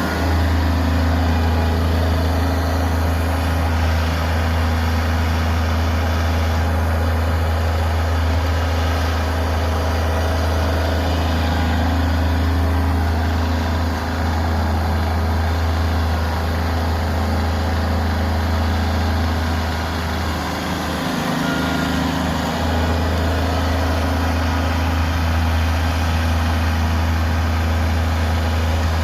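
Loader's engine running steadily with a deep, even hum as its bucket pushes snow; the engine note dips briefly about two-thirds of the way through, then returns.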